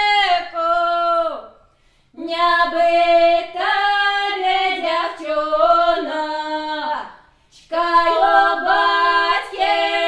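A woman's voice singing a Russian folk song unaccompanied, in long held phrases, with two short pauses between them.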